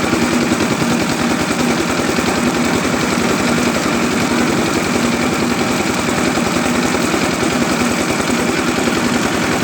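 An engine running steadily with a fast, even chugging and a constant low hum, typical of the small engine that drives a village food-processing machine.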